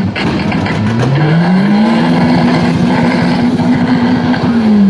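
A drag car's engine revved on the start line before launch: the revs climb over about a second, hold steady for a couple of seconds, then begin to drop near the end.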